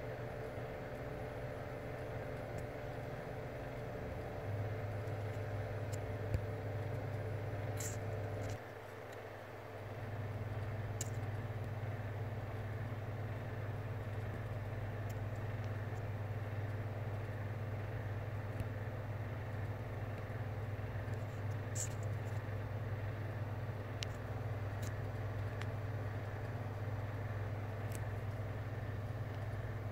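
Steady low mechanical hum with a few faint clicks. It drops out for about a second around nine seconds in, then resumes.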